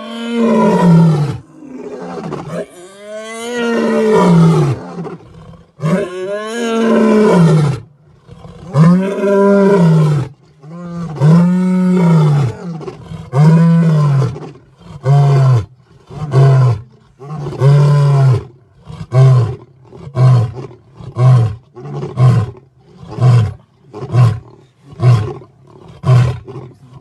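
Lion roaring through a full bout: five long, loud roars, each rising then falling in pitch, then a run of shorter grunting roars that come quicker and quicker toward the end.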